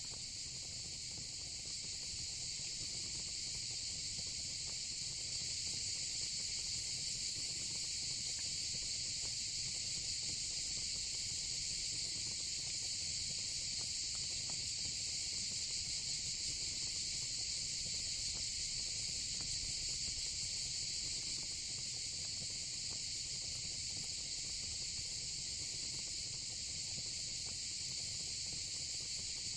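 A steady, high-pitched chorus of insects, such as crickets or cicadas, runs without a break. Under it a fire pit crackles faintly now and then over a low, even rumble.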